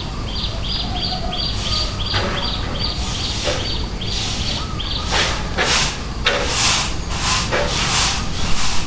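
A bird calling a quick string of short, repeated high chirps, about three a second, through the first half. From about five seconds in, a sapu lidi stick broom of palm-leaf ribs swishes across the yard ground in brisk strokes, about two a second, over a steady low background rumble.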